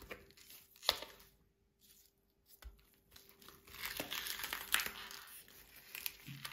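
Ice cubes being popped out of a flexible silicone ice tray, the tray crackling and creaking as it is bent, with sharp clicks as cubes break free and drop onto watermelon chunks. There is a sharp click about a second in and a denser burst of crackling around four seconds in. A faint steady hum runs underneath.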